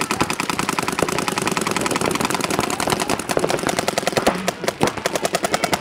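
Paintball markers firing in rapid, overlapping streams of shots: a fast, steady patter of pops many times a second.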